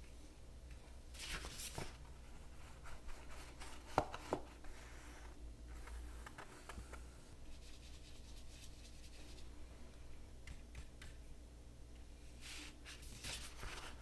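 Faint scratching and brushing of a paintbrush working paint on paper and palette, in a few short strokes with a light tap about four seconds in, over a low steady hum.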